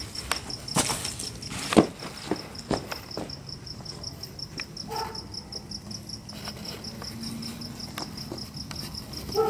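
Crickets chirping in a steady, even pulse, several times a second. A few sharp knocks sound over it in the first three seconds.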